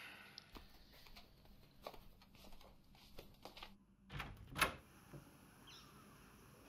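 Faint scattered clicks and knocks, then two louder knocks about half a second apart a little after four seconds in.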